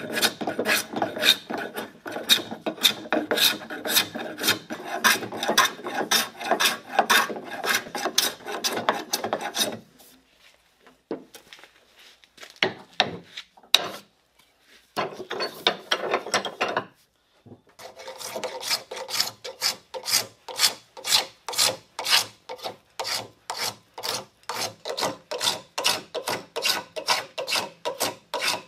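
Hand tools shaping a walnut shotgun stock: about ten seconds of quick, dense shaving strokes, a pause with only a few scattered strokes, then a rasp filing the wood at about two strokes a second.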